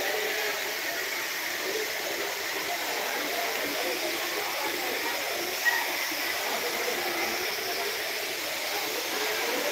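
Steady rush of water falling down a rock face from a waterfall, with faint voices beneath it and one brief tap a little over halfway through.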